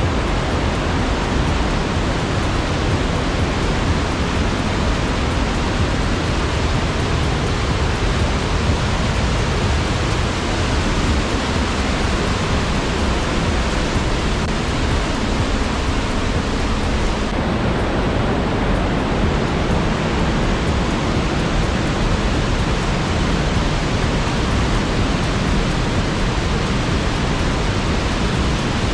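Mountain torrent rushing through a narrow rock gorge: a loud, steady, unbroken roar of water.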